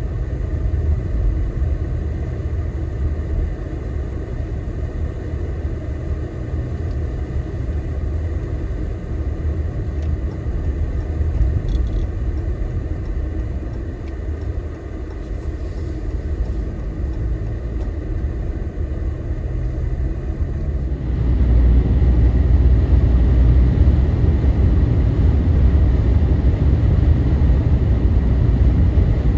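Steady low rumble of a vehicle driving through blizzard winds: road and engine noise mixed with wind, stepping up louder about twenty seconds in.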